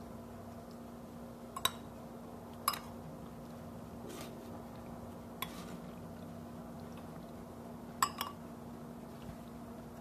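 A metal spoon clinks sharply against a ceramic soup bowl about four times while scooping soup, the last a quick double clink. A steady low hum runs underneath.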